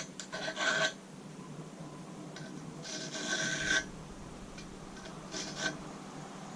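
Caliper jaw tips used as a scribe, scratching lines into a steel plate to mark drill hole locations: three separate scraping strokes, near the start, about three seconds in and near the end, the middle one the longest.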